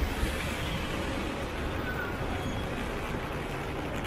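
Steady wet-weather city street noise: an even hiss of rain and traffic on wet roads, with two brief knocks right at the start.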